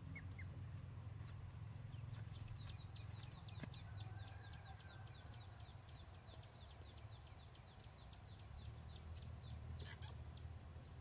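A rapid, even series of short, high chirps, each sliding down in pitch, about four a second for several seconds, from a bird, over a faint low rumble. A single sharp click comes near the end.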